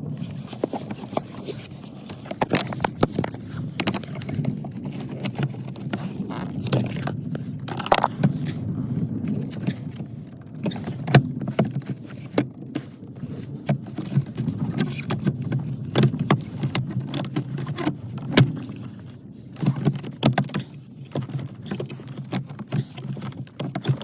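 Irregular clicks, knocks and scrapes of hand work with a screwdriver on plastic parts under a car's dashboard, while the heater blower motor's electrical connector is worked loose. A steady low rumble runs underneath.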